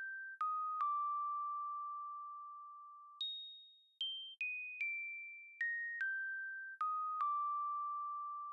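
Instrumental music: a bell-like melody of single, quickly fading notes stepping downward, each phrase ending on a held low note. The phrase begins again about three seconds in, starting from a higher note.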